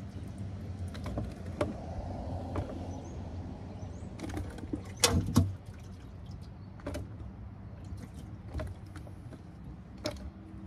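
Crappie being lifted out of a boat's live well: water splashing and sloshing in the well, with scattered knocks and clicks from handling in the well's hatch. The loudest is a cluster of knocks about five seconds in, all over a steady low hum.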